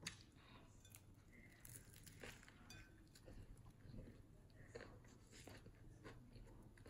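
Faint crunching and chewing as a crusty baguette sandwich is bitten into and eaten, with scattered soft clicks and mouth sounds.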